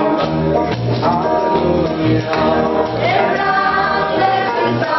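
Choir singing a gospel song over a band, with a steady run of low bass notes underneath.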